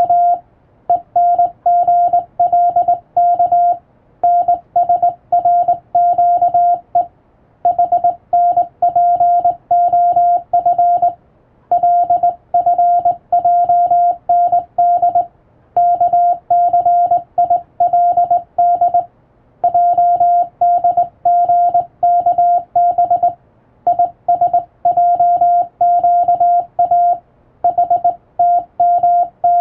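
Hand-keyed Morse code (CW): a single steady tone of about 700 Hz switched on and off in dots and dashes. It comes in groups of characters of a few seconds each, with short pauses between the groups, as when sending practice telegram text.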